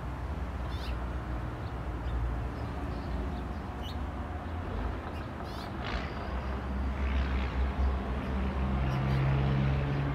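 Steady low mechanical hum in a backyard, with a few short high chirps scattered through it.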